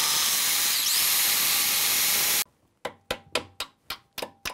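Hammer drill boring a fastener hole with a 3/16-inch bit, running steadily and stopping suddenly about two and a half seconds in. About half a second later a hammer starts tapping a lead fastener into the hole, with rapid knocks at about four a second.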